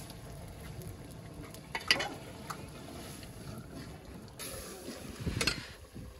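Cooking over an open wood fire: a metal ladle stirring in a pot on a clay stove, with sharp clicks and knocks (the loudest about two seconds in) and a rustling stretch about five seconds in, over a steady low rumble.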